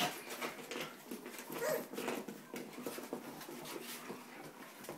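Three-and-a-half-week-old Australian Shepherd puppies playing and tussling with their mother, giving small whimpers and a short squeal about a second and a half in, over a busy scatter of light clicks and scuffles.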